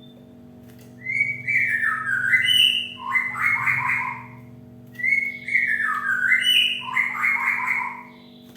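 Cinereous tit (gelatik batu) singing: two phrases of about three seconds each, made of quick clear whistled notes that step down and back up in pitch, over a steady low hum.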